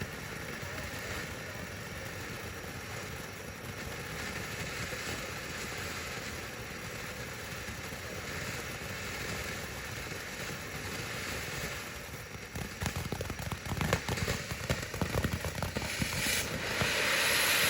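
Consumer ground firework spraying with a steady hiss, then from about twelve seconds in a fast, crackling run of pops that grows louder.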